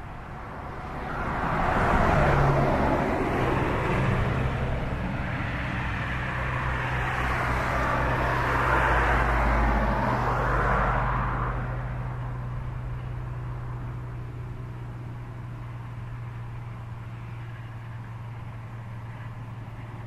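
John Deere 7530 tractor's six-cylinder diesel engine droning steadily at constant pitch under ploughing load, heard from a distance. A louder rushing noise swells about a second in and fades out about twelve seconds in.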